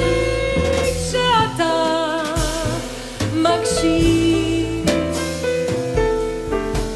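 Jazz quartet playing: a woman sings long notes with a wavering vibrato over piano, double bass and drums with cymbals, the voice coming in about a second in and the band carrying on without it near the end.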